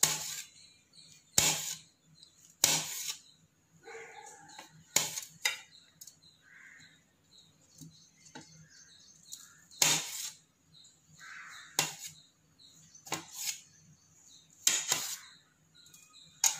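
Kitchen knife slicing button mushrooms on a stainless steel plate: the blade hits the steel about ten times, each a sharp knock, at uneven intervals.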